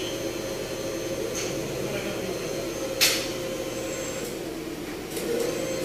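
Steady machine hum with a single sharp knock about three seconds in and a few faint clicks.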